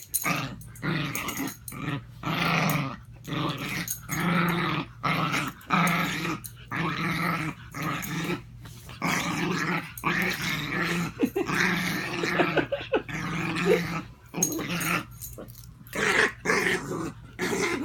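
Dog growling in a long run of short grumbles, roughly one a second, with brief pauses between them.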